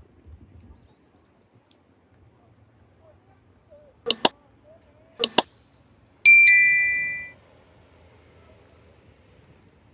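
Sound effect of two quick mouse-button double clicks, about a second apart, followed by a single bright notification-bell ding that rings out and fades over about a second.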